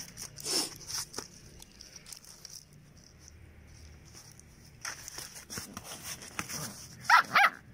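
A puppy chewing and pawing a strip of plastic on cardboard: soft rustling, crinkling and small clicks. Near the end come two short, high animal cries, the loudest sounds.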